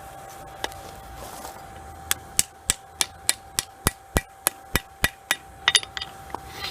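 Hand hammer forging a railroad spike knife on an anvil: after one single blow, a steady run of about a dozen sharp metal strikes at roughly three a second, then a few lighter, uneven taps near the end.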